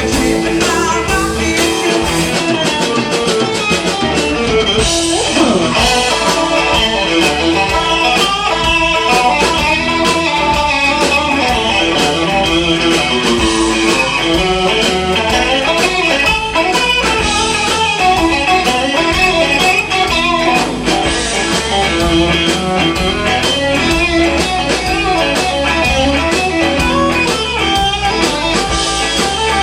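Blues band playing live, led by electric guitar, with no vocals. About five seconds in, a note slides sharply in pitch.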